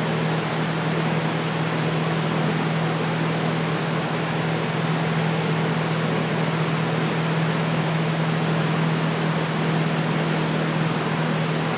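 Steady whir of a running fan, an even rushing noise with a constant low hum under it.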